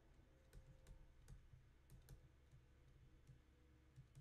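Faint, irregular clicks of a stylus tapping on a tablet screen during handwriting, about ten in four seconds, over near-silent room tone.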